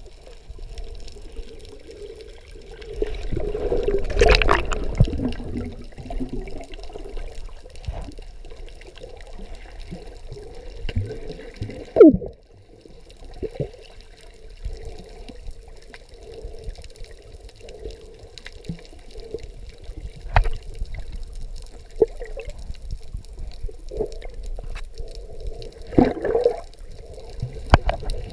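Underwater swimming sounds heard through a waterproof camera housing: muffled water churning and bubbling as snorkellers kick and stroke, louder for a few seconds near the start. Scattered short knocks, and one sharp, loud knock about twelve seconds in.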